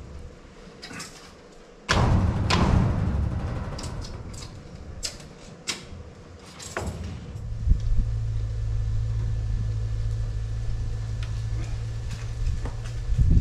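Knocks and clatter of a rain pipe being handled and fitted against a roof gutter: a sudden loud clatter about two seconds in, then several sharp knocks. A steady low rumble runs through the second half.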